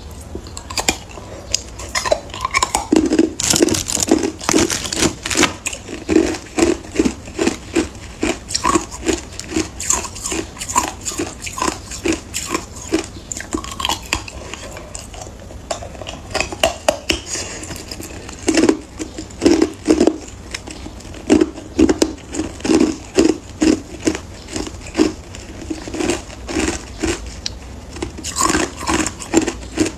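Clear hard ice being bitten and chewed: a dense run of sharp crunches and cracks over rhythmic chewing, about two chews a second.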